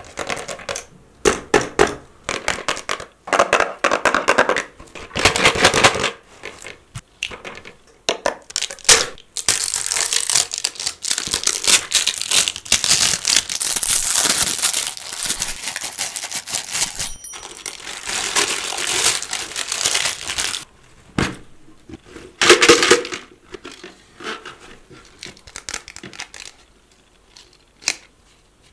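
Packaging wrappers being crinkled and torn open by hand, in repeated bouts of crackling, with a long continuous stretch through the middle and scattered light clicks and rustles near the end.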